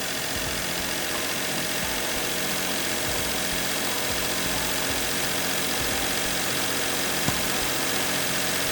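Daihatsu Mira L275S's KF three-cylinder engine running steadily at idle, with one short click about seven seconds in.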